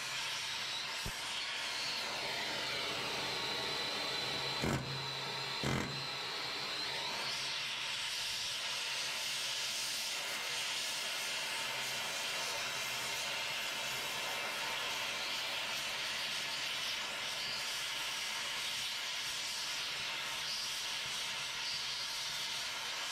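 Oxy-fuel cutting torch hissing steadily as it heats and cuts away leftover bracket steel to trim it flush with the suspension beam. Two short knocks come about five seconds in.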